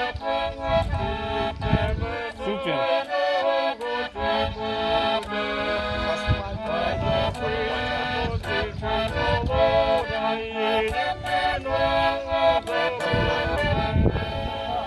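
Accordion playing a tune in full chords, the held reedy notes changing every fraction of a second.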